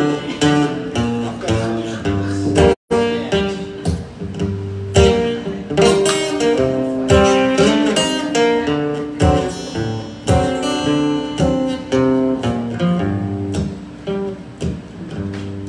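Acoustic guitar playing a song's instrumental intro, chords and single notes ringing through a PA, with a brief dropout about three seconds in.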